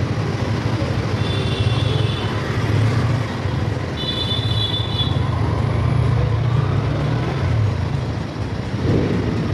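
Motorcycle on the move in road traffic: a steady low rumble of engine and road noise, with two short high-pitched chirps about a second and a half and four seconds in.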